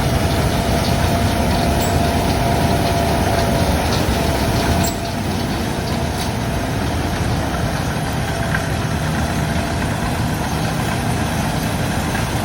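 Diesel engine of large wheat-harvesting machinery running steadily, with a steady whine over it that stops about five seconds in, where the sound drops slightly.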